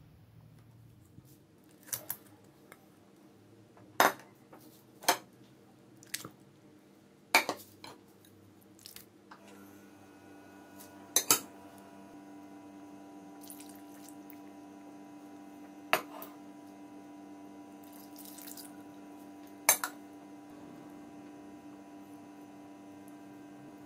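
Kitchen utensils and dishes knocking and clinking, about eight separate sharp knocks a second or several apart. About ten seconds in, a steady hum comes in and holds.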